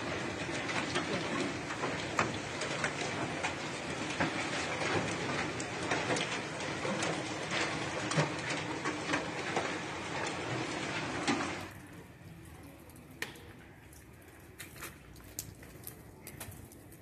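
Hailstorm: a dense hiss of rain and hail, with many sharp ticks of hailstones striking the ground and nearby surfaces. About twelve seconds in it cuts off abruptly, leaving a much quieter background with occasional clicks.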